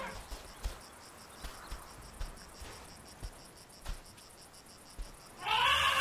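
Insects chirping in a fast, even pulse, with a few faint clicks. Near the end an African bush elephant calf gives a loud, high call that rises and falls, lasting under a second.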